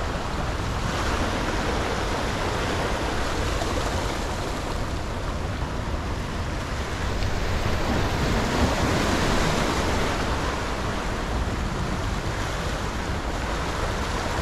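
Ocean surf washing and breaking against the boulders of a rock jetty, a steady rush of water that swells louder a little past the middle.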